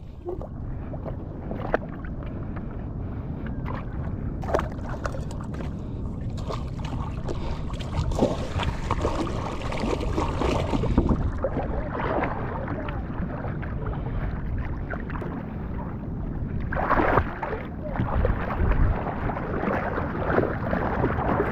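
Choppy seawater sloshing and splashing close to the microphone, with louder splashing surges a little before the middle and again about three-quarters through.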